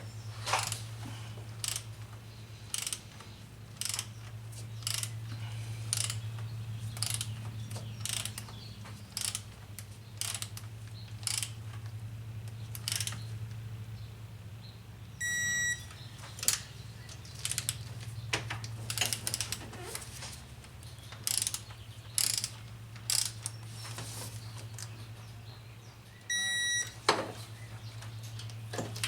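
Hand ratchet and socket clicking in short, irregular runs while bolts are worked loose, over a steady low hum. Two short electronic beeps sound, one about halfway through and one near the end.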